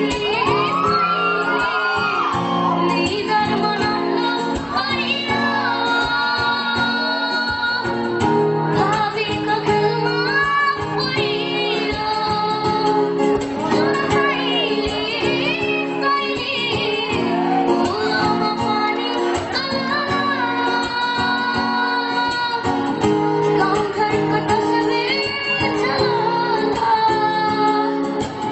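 A Nepali song: a solo voice singing long held, wavering and ornamented notes over steady instrumental accompaniment.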